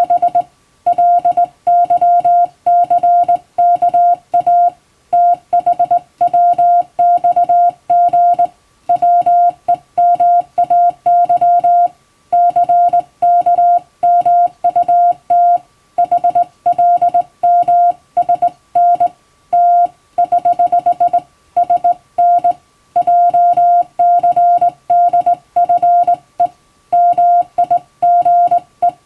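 Hand-sent Morse code: a steady mid-pitched beep keyed on and off into short dots and longer dashes, grouped into characters and words with brief silent gaps between them.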